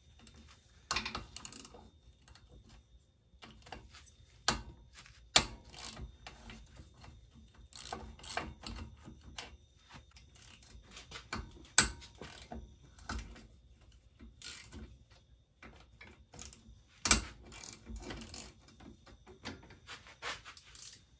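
Scattered metallic clicks, clinks and knocks of hand tools and fasteners as the top end of a Yamaha Moto-4 350 ATV engine is taken apart to pull the cylinder head, with a few louder knocks spread through.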